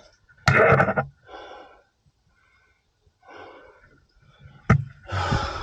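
A man breathing hard, with several loud puffing exhales, out of breath from heavy physical exertion. A single sharp click comes late on.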